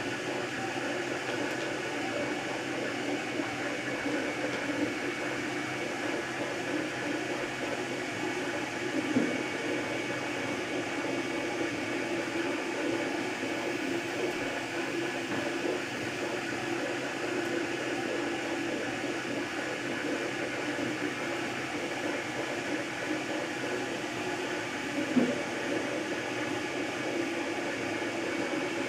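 MakerBot Replicator 2 3D printer running a print: the stepper motors whir in steady tones as the extruder carriage moves, over the hum of the extruder's cooling fan. Two brief clicks come through, about nine seconds in and again near the end.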